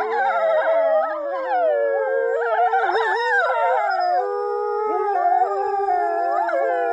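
Two grey wolves howling together: several long, overlapping howls that glide up and down in pitch. A woman howling through cupped hands joins the chorus near the start.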